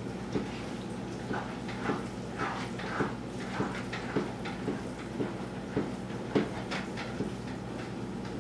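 A utensil stirring a thick noodle-and-sauce mixture in an overfull pan, knocking and scraping against the pan in a steady rhythm of a little under two strokes a second. A steady low hum runs underneath.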